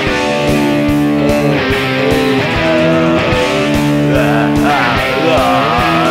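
Self-made rock song with guitar, playing long held notes, with a wavering, bending melody line in the second half.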